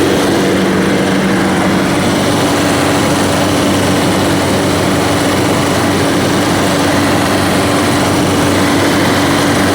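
Husqvarna walk-behind concrete saw running steadily under load, its 26-inch diamond blade cutting full depth through concrete with water feed: a steady engine note under a loud grinding hiss.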